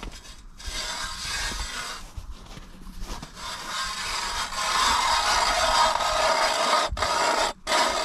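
Hand-cranked ice auger boring through pond ice: a steady rasping scrape of the spiral blade cutting. It grows louder about halfway through, with two brief breaks near the end.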